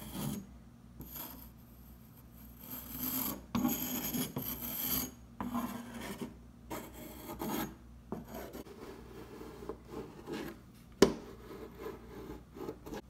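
Metal blade of a painter's multi-tool scratching grooves into partly hardened water putty, in a series of short scraping strokes. A sharp tap about 11 seconds in is the loudest sound.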